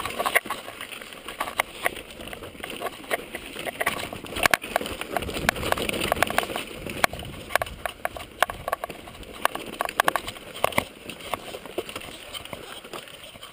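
Footsteps on a stony path: irregular clicks and knocks over a steady rushing noise.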